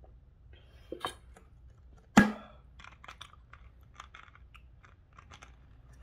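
A single sharp knock on a hard surface about two seconds in, with faint clicks and rustling handling sounds around it.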